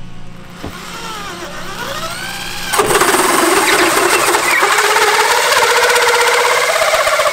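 Cordless drill with a 3¼-inch hole saw: the motor whines as it spins up, its pitch dipping and rising, then about three seconds in the saw bites into the fiberglass deck and cuts with a loud, steady grinding until near the end.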